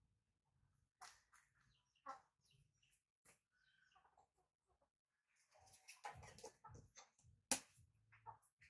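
Faint, scattered short squeaks and chirps from baby monkeys, mixed with soft handling sounds, and a single sharp click near the end that is the loudest sound.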